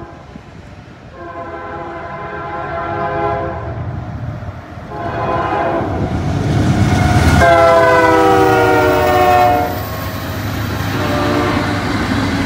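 Freight locomotive's several-note air horn blowing long blasts as the train comes on, its pitch falling as the locomotive passes about seven seconds in. Underneath, the low rumble of the train, then covered hopper cars rolling by, with the horn sounding again, fainter, near the end.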